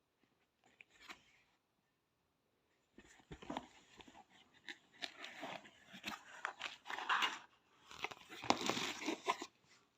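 Crinkling, crackling and tearing handling noise with many sharp clicks, starting about three seconds in and stopping just before the end.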